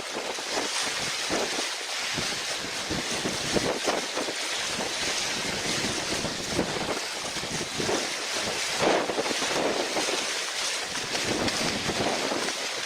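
Gusty wind buffeting the microphone over splashing, rushing water, in uneven swells.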